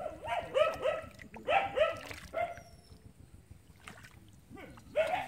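A dog barking in a quick series of short barks, pausing about halfway through and starting again near the end.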